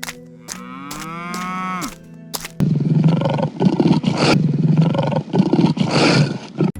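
Animated-cartoon animal sound effects: a cow moos once, a single call that rises and then falls in pitch, followed by about four seconds of a loud, rough roar with a few sharp hits in it.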